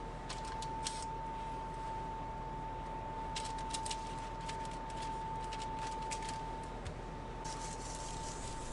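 Soft crinkles and clicks of parchment paper and foil being handled while lemon slices are tucked under a whole scored tautog on a baking tray, with a denser patch of crinkling near the end. A steady high-pitched hum runs underneath.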